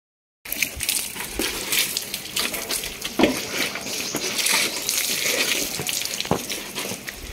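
Water poured from a steel mug, splashing over a motorcycle's bodywork: a steady splattering hiss with a few small knocks. It starts about half a second in, after a brief silence.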